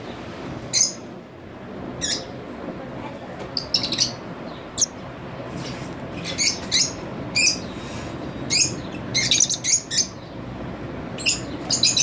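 Young peach-faced lovebird giving short, sharp high-pitched chirps, at first about one a second, then coming faster until they run into a quick series of chirps near the end.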